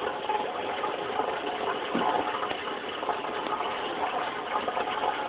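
Turtle aquarium's water filter running: a steady rush of splashing water.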